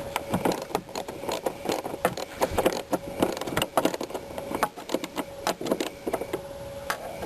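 Irregular small metallic clicks and rattles of a screw being driven with a screwdriver and handled, fastening a rear-seat bracket to the car body.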